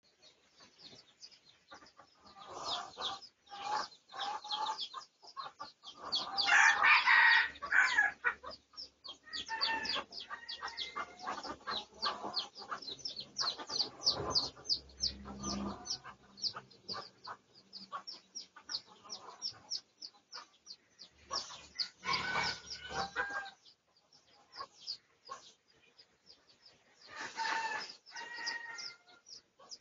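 Junglefowl calling: a cock crows loudly about seven seconds in and again around twenty-two and twenty-eight seconds, amid clucks and a steady run of short chirps.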